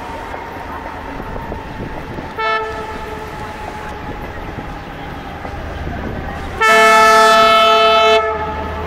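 ALCO WDM3D diesel locomotive approaching with its engine rumbling steadily. It sounds its horn in a short toot about two and a half seconds in, then a long, loud blast of about a second and a half near the end.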